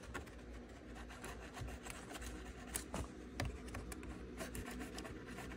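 Fingers rubbing aluminum tape down onto a plastic trim panel: a faint, dry scratchy rubbing with a few small clicks.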